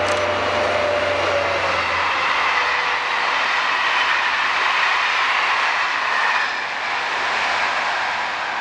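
SNCF CC 72100-class diesel locomotive hauling a rake of Intercités coaches past: the locomotive's engine goes by, then the coaches roll past on the rails. The sound is loud and steady, easing slightly about six and a half seconds in as the end of the train passes.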